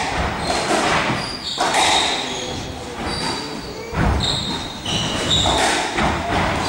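Squash rally: the ball struck by rackets and smacking off the walls every second or so, with sneakers squeaking in short high squeals on the court floor.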